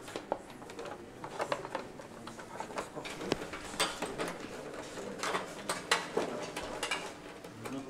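Fairing panels being handled and fitted onto a motorcycle design mock-up: irregular clicks, knocks and light scrapes of the parts against each other and the frame.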